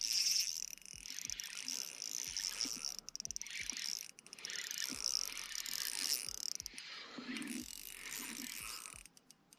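Fishing reel being cranked to bring in a hooked fish, a steady high-pitched whir of its gears with irregular ticks.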